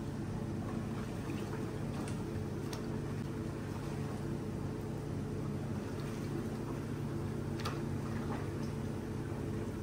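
A machine running with a steady hum that holds several fixed pitches, with a few faint clicks over it.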